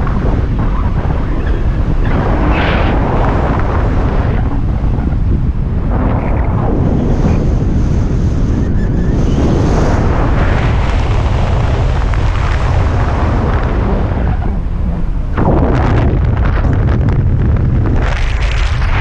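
Airflow buffeting the microphone of a speed flyer's camera in flight: a loud, low wind rumble that surges and eases, with a stronger gust about three-quarters of the way in.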